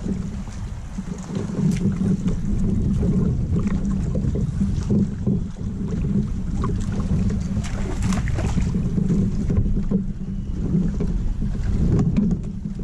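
Wind rumbling on the camera microphone over water lapping at a kayak's hull, with scattered small clicks.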